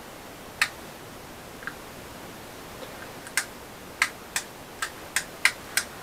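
Sharp, dry clicks of the sump pump's small switch being worked by hand, a few scattered at first, then about three a second in the second half.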